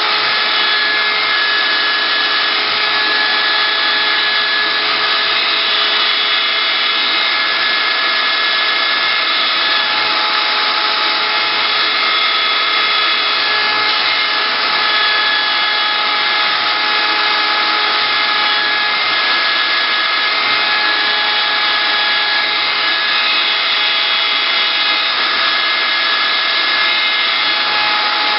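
CNC wood router running steadily, its spindle and cutter giving a loud whine. Several high tones shift in and out as the machine moves.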